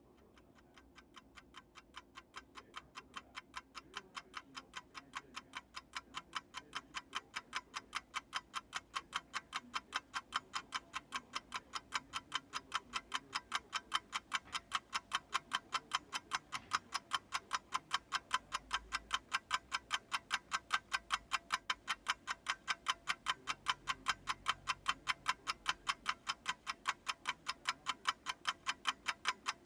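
Mechanical watch ticking at a steady fast rate, the ticks starting faint and growing louder over the first several seconds, then holding steady.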